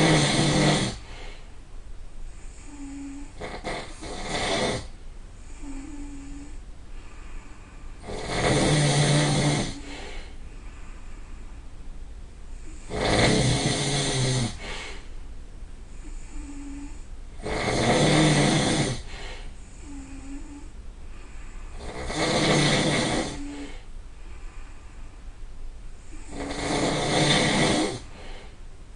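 A person snoring loudly, about every four and a half seconds, each snore lasting a second or two, with a faint short tone in the gaps between snores.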